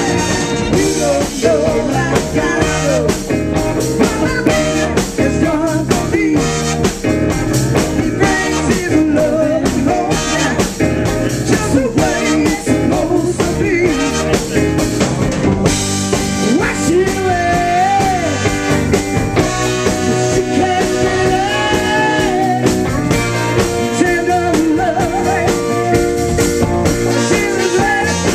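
Live soul-rock band playing: a woman sings lead over drums, guitar and a horn section of trombone and saxophone.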